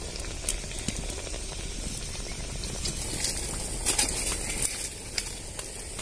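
Malpua batter deep-frying in hot refined oil in a steel kadai: a steady bubbling sizzle with scattered sharp pops, which come thickest between about three and five seconds in.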